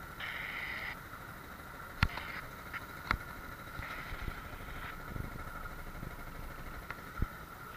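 Motorcycles moving at walking pace, their engines faint and steady, with a few sharp clicks about two, three and seven seconds in.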